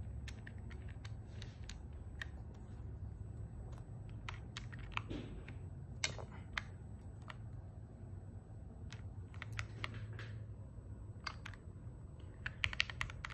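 Keys of a gasket-mounted mechanical keyboard fitted with linear switches being pressed: scattered single keystrokes, then a quick run of several presses near the end.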